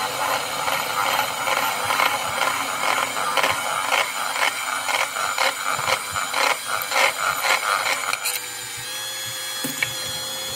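Rotary tool's thin cut-off disc grinding through a small metal pin, a gritty rasp that pulses unevenly as the disc bites. About eight seconds in the cutting stops and a small motor runs on with a steady whine.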